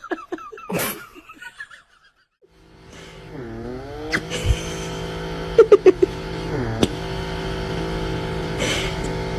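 A small handheld electric device's motor starts about two and a half seconds in and runs with a steady whine. Its pitch sags twice as it is briefly loaded, and a few light clicks come between. Before it, a few brief scattered noises.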